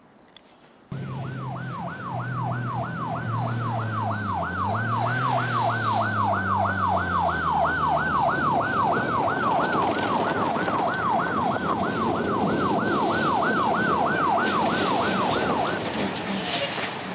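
Police siren sounding in fast rising-and-falling sweeps, about three a second, starting about a second in and stopping shortly before the end. Vehicle engines and road noise run underneath.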